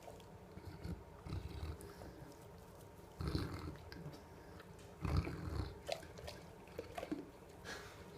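A dog burping twice, two low, rough sounds about three and five seconds in, with small mouth clicks between them.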